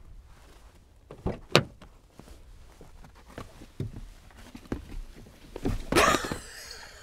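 Rear door of a Nissan Navara's cab being opened and a person climbing onto the back seat, heard from inside the cabin: a few clicks and knocks, then a louder rustling thump about six seconds in as she gets in.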